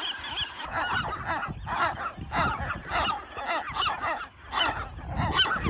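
A colony of western gulls screaming, many harsh cries overlapping and repeating every half second or so.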